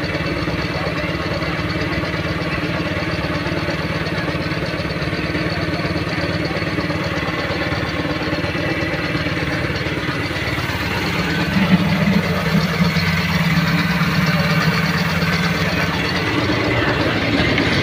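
An engine idling steadily, a constant low hum. Past the middle, a deeper drone swells for about four seconds.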